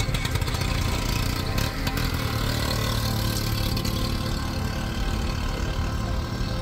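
Motor vehicle engines running at close range at low speed, a steady low drone.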